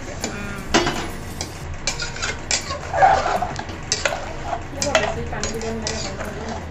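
Spoon stirring pulao rice in a cooking pot with sizzling, scraping and knocking against the pot every second or so.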